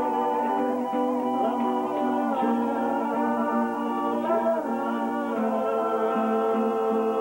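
Electronic keyboard playing long sustained chords that change step by step, with a few notes sliding in pitch.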